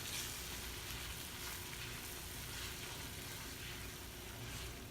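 Melted butter and minced garlic sizzling steadily in a small pan, with the spice seasonings just added, a soft even hiss.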